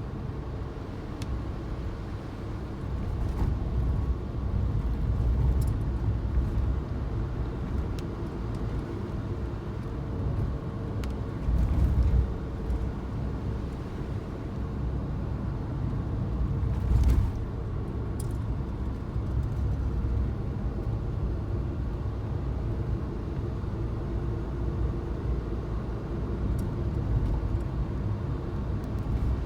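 Suzuki Jimny driving, with a steady low rumble of engine and road noise and a couple of louder bumps partway through.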